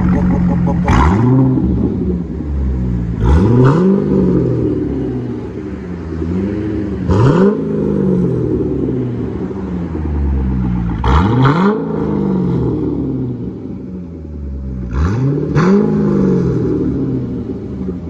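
2008 Chevrolet Corvette V8 with long-tube headers, high-flow cats, an X-pipe and turndowns in place of mufflers, blipped five times. Each rev rises quickly and falls back to idle.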